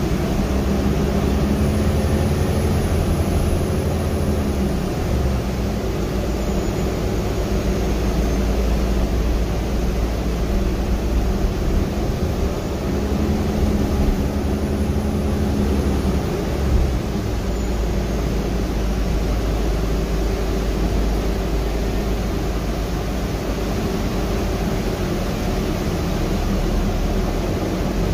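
Inside a Gillig trolley-replica hybrid bus under way: a steady drivetrain and road rumble. A faint high whine rises and falls twice, about a second in and again near the middle.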